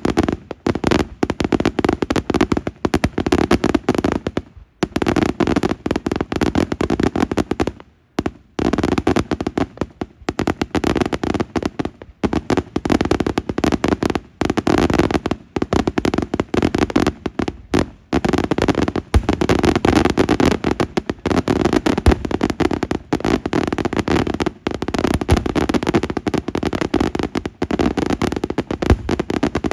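Daytime fireworks going off in a dense, continuous barrage of loud bangs and crackle, many reports a second. There are two brief lulls, about four and a half and eight seconds in.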